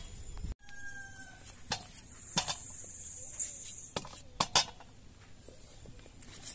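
Sharp clinks of cut potato chunks and a knife knocking against a stainless steel bowl, five or so spread over a few seconds, the loudest two close together just past the middle. A chicken gives a short call about a second in, over a steady high hiss.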